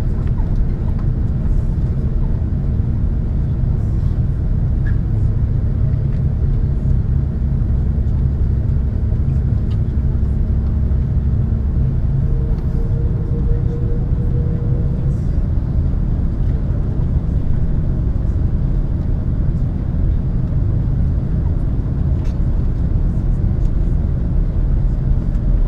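Steady low rumble inside the cabin of a Singapore Airlines Airbus A330 taxiing on the ground: the engines running at low thrust and the airframe rolling along the taxiway. A faint low hum beneath it stops about halfway through.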